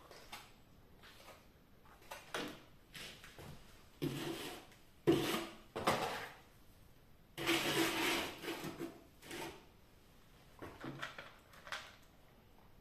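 Metal plastering knife scraping and pressing wet plaster around a plastic flush-mount electrical box, with rubbing and knocks as the box is handled, in several short bursts with pauses; the longest bursts come about four to six seconds in and again around eight seconds in.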